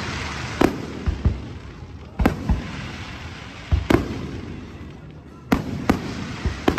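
Fireworks display: aerial shells bursting in a series of sharp bangs, about ten of them in irregular pairs and clusters, over a continuous noisy hiss.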